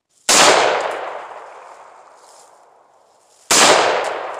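Two rifle shots about three seconds apart, each a sharp crack that echoes and dies away over a couple of seconds.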